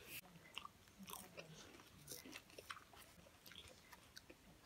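Faint, irregular small clicks and crackles of dried fish (ngari) being picked apart by hand to take out the bones.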